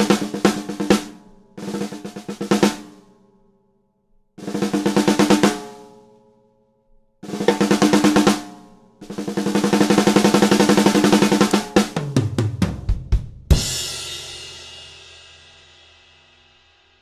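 Gretsch Black Copper snare drum played in fast rolls and fills, phrase after phrase with short pauses between. Near the end a fill runs down onto lower drums and closes on one loud final hit with a cymbal that rings out and fades away.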